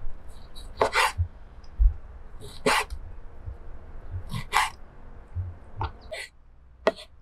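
A chef's knife cutting raw beef into chunks on a wooden cutting board: about six short, crisp cuts a second or two apart, each ending in a knock of the blade on the board, with softer low thumps as the meat is handled.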